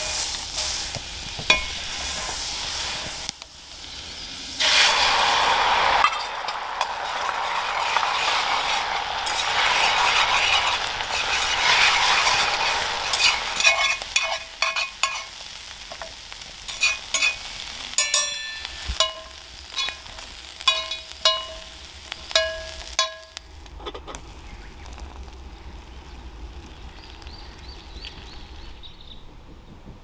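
Butter and then eggs sizzling in a hot iron frying pan, the sizzle growing louder about five seconds in. From about halfway a metal utensil scrapes and taps the pan as the eggs are stirred, giving short ringing clinks, and the sound dies down in the last few seconds.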